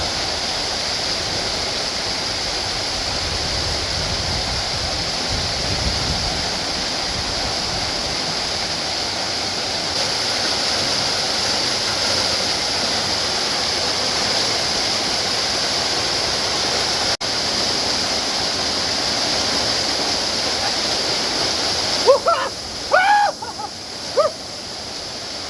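Waterfall rushing steadily. Near the end a man lets out several short cries from the shock of the icy water.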